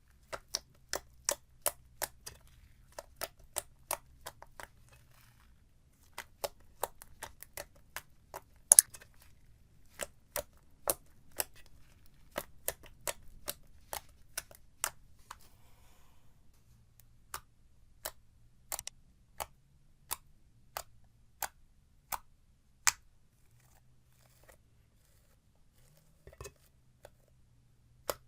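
Slime being pressed and poked, letting out a string of crisp popping clicks at an irregular one to three a second, with one louder pop about nine seconds in and a brief lull near the end.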